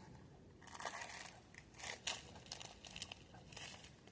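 Faint crinkling and rustling with a few light clicks, the sound of small firework packets being handled and pulled out of a belt pouch.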